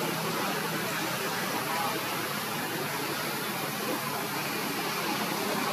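Steady background hiss with a low, even hum underneath; no clear animal call or sudden sound.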